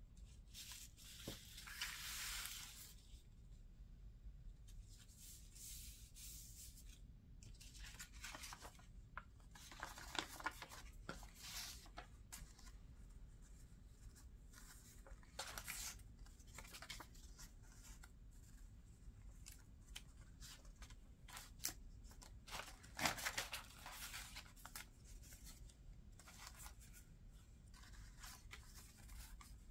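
Faint rustling and sliding of old paper scraps as they are handled and stacked, in short swishes a few seconds apart, the loudest about two-thirds of the way through.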